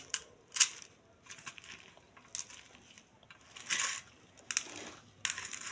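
A hand squeezing and kneading chopped hincha greens with gram flour and spices in a steel plate, mixing chop batter: soft crushing, rustling sounds in irregular bursts, about five, with short pauses between.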